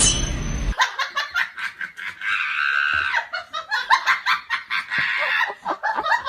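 A person laughing hard in quick repeated bursts, after a brief end of background music.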